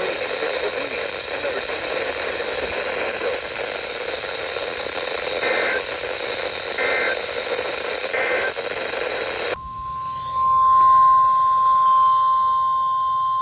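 Weather radio alert: steady radio hiss broken by three short warbling data bursts, the SAME header of an Emergency Alert System warning, about a second and a half apart. Then the hiss cuts out and the NOAA Weather Radio's single steady 1050 Hz warning alarm tone starts and grows loud.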